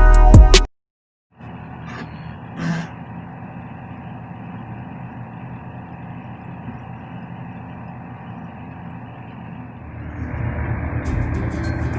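Sumitomo mini excavator's diesel engine running steadily. It grows louder about ten seconds in, and there is a brief louder sound near three seconds.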